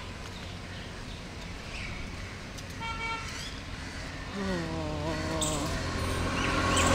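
Street traffic: a steady low rumble with a short vehicle horn toot about three seconds in. Then a passing motor vehicle's engine note glides down in pitch, and the traffic grows louder toward the end.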